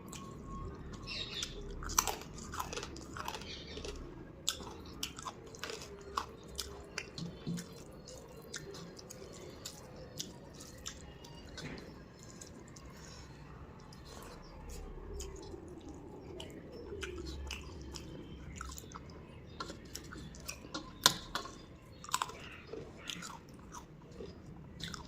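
A person chewing food close to the microphone, with wet mouth sounds and scattered sharp clicks and crunches at irregular intervals.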